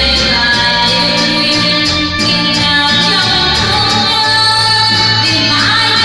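A woman singing into a corded microphone over instrumental backing music, her voice holding long notes with a glide near the end.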